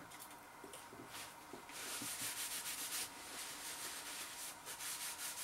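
A paper napkin rubbed and rustled between the hands as fingers are wiped clean, a steady rustle that starts about a second and a half in.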